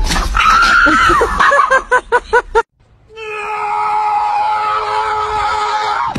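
Dogs screaming and yelping in a scuffle, ending in a quick run of about five short rising-and-falling yelps. After a brief gap, a dog gives one long, steady howling whine lasting about three seconds.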